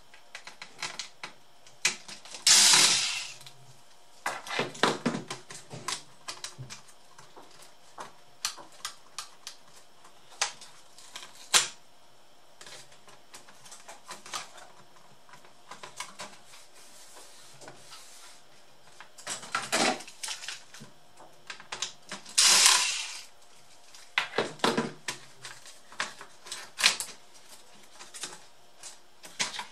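Electric screwdriver running in short bursts of about a second as it backs out screws from a laptop motherboard, the two loudest bursts well apart. Between them come scattered clicks and knocks of screws, tools and plastic laptop parts being handled.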